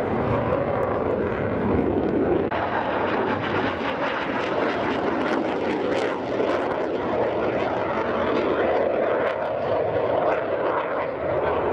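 Saab JAS-39 Gripen fighter's Volvo RM12 turbofan flying a display pass, a steady loud rushing jet noise.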